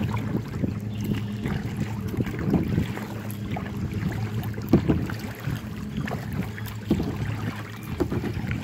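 Kayak being paddled on open lake water, with paddle splashes and knocks roughly every two seconds over a steady low rumble of wind on the microphone.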